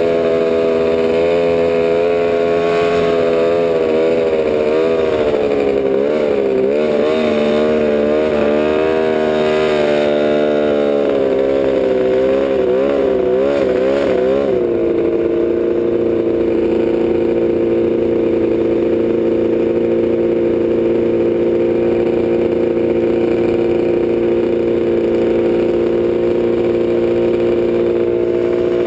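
Polaris Ultra 680 three-cylinder two-stroke snowmobile engine, piped, swapped into a Polaris Scrambler quad. While riding, its pitch keeps rising and falling with the throttle; about halfway through it settles to a steady idle.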